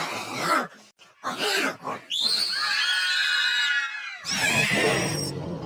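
A voice making wordless animal-like sounds: a few short rough grunts, then a long high squeal that slowly falls in pitch, ending in a harsh raspy noise.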